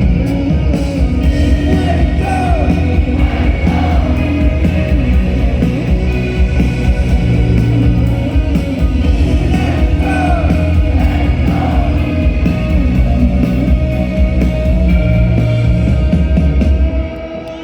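Live rock band playing the closing section of a song, loud and full with heavy bass and singing over it; the music drops away near the end.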